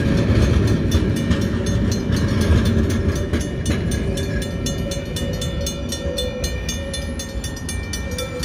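Level-crossing alarm with Griswold mechanical bells ringing in steady, rapid strikes while a train rumbles over the crossing. The rumble eases as the train moves away.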